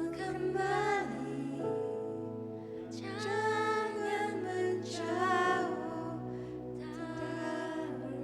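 Slow worship music: steady held keyboard chords, with a voice singing drawn-out phrases over them four times, at about a second in, around three, five and seven seconds.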